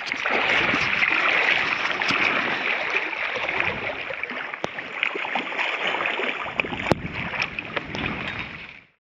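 Shallow river current rushing and lapping around a wader's legs, with small splashes and knocks from a trout in a landing net held in the water. The sound cuts off suddenly near the end.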